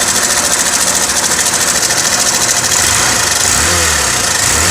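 Hero Glamour 125 BS6 fuel-injected single-cylinder engine idling with a fast, steady mechanical clatter, which the mechanic traces to a faulty cam chain tensioner.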